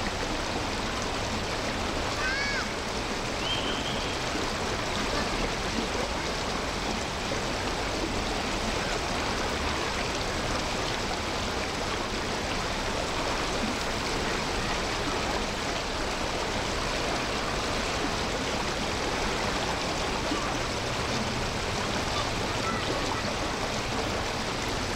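Steady rush of running water, an even hiss that does not change, with a few short bird chirps about two to four seconds in.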